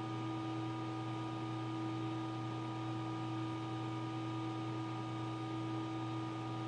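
Steady machine hum with several constant tones over a faint hiss, unchanging throughout, from running equipment.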